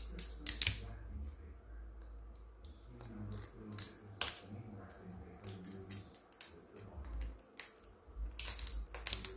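Small cutters snipping and snapping 3D-printed support material out of a plastic housing: irregular sharp clicks and snaps, in clusters near the start, around the middle and toward the end.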